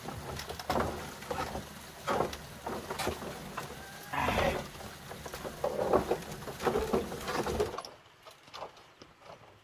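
Irregular knocks, taps and creaks of bamboo furniture and a bamboo-slat floor as people get up and move about, cutting off suddenly near the end.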